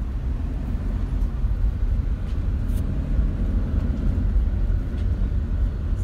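Steady deep rumble of a car heard from inside the cabin: engine and road noise.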